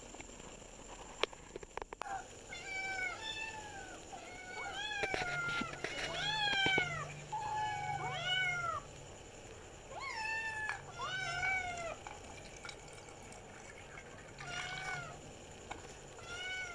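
Young kittens meowing: many short, high-pitched mews that rise and fall, coming in quick runs of several calls with short pauses between, some of them overlapping. A couple of sharp clicks come about a second before the first mews.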